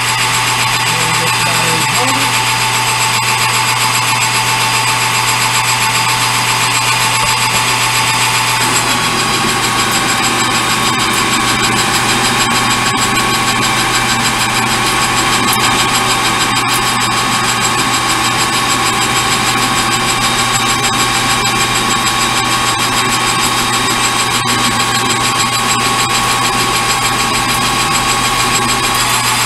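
Metal lathe running steadily, turning a 1-inch bar down toward 1/2 inch diameter; the machine's tone shifts slightly about eight seconds in.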